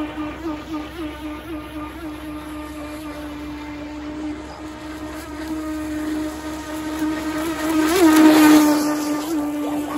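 Traxxas Blast RC boat's electric drive, upgraded to a Titan 12-turn motor, whining at speed: a steady high tone that wavers slightly as the hull skips over the water. It grows louder as the boat runs in close, peaking about eight seconds in with a splashing rush of spray.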